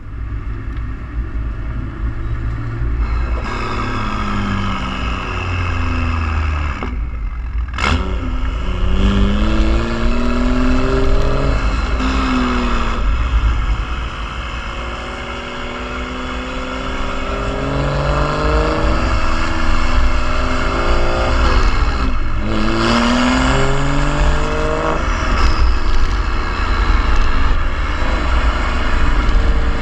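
BMW M2's N55 turbocharged straight-six through a valved stainless-steel exhaust with a catless downpipe, heard close to the tailpipes while driving. The exhaust note climbs in pitch through several pulls and drops back at each gear change, with one sharp crack at a shift about eight seconds in and an easier, steadier stretch midway.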